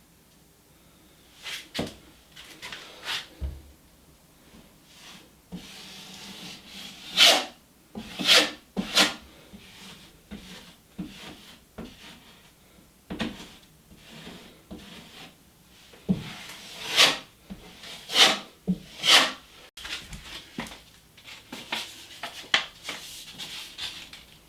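Intermittent rubbing and scraping handling noises from drywall patching work, a dozen or so short strokes at irregular spacing, the strongest around seven to nine seconds in and again around seventeen to nineteen seconds in.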